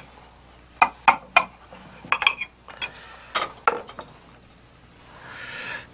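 Metal utensils clinking and scraping against a china serving plate while a wedge of stuffed cabbage is cut and lifted out, in a series of light, irregular clinks.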